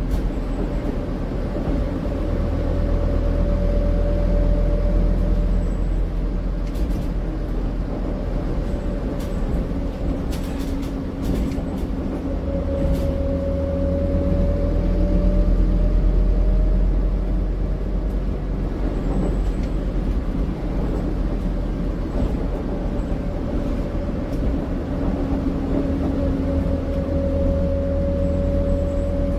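Cabin noise of a Scania Citywide articulated city bus: a steady low engine and drivetrain drone, with a thin whine that slowly drifts up and down in pitch. A scattered run of light clicks and rattles from the cabin fittings comes through partway along.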